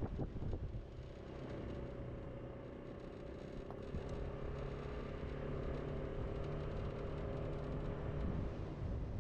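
Scooter's motor running at a steady pace while riding along the road, a few even tones over wind rumble on the microphone.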